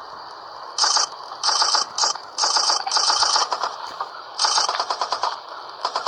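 Fast rattling clicks in five or six short bursts, each under a second long, with a fainter hiss between them.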